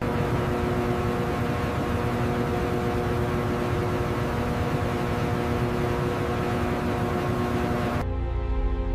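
Steady mechanical drone: an even hiss with a few steady humming tones underneath, cutting off suddenly about eight seconds in.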